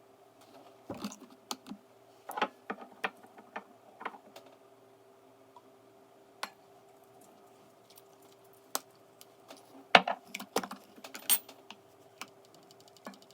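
Irregular light clicks and taps of small hard objects being handled, loudest about ten seconds in, over a faint steady hum.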